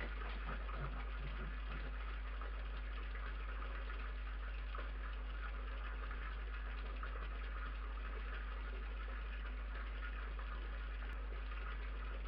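Steady low electrical hum with an even hiss over it, the self-noise of a security camera's audio. It does not change.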